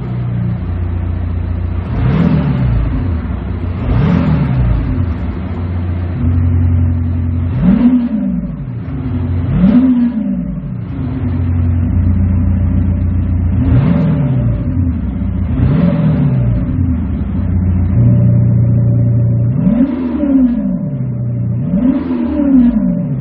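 Audi engine revved in short blips, about eight rises and falls in pitch, in pairs roughly two seconds apart, settling back to a steady idle between them. The exhaust note is coloured by an aftermarket Kufatec active sound booster, which is switched to different sound modes between the pairs.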